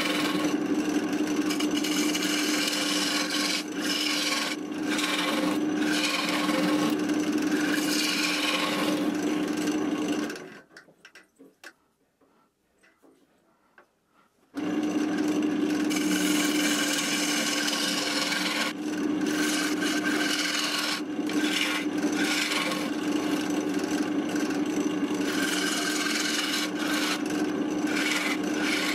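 Wood lathe spinning an off-centre oak blank while a bowl gouge cuts into it: a steady hum under a continuous scraping, rasping cut. About ten seconds in it drops to near silence for roughly four seconds while the lathe is stopped, then the cutting starts again suddenly.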